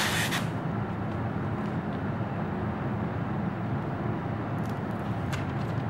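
Clear plastic protective film crackles briefly as it is peeled off a smartphone at the very start. After that a steady low background rumble dominates, with a few faint clicks about five seconds in.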